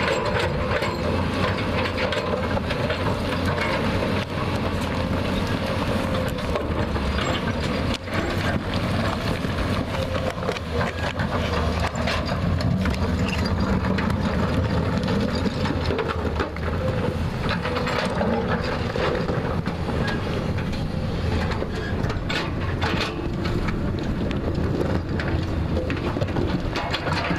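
JCB 3DX backhoe loader's diesel engine running steadily under load, with scattered knocks and scraping as the bucket cuts into the hillside.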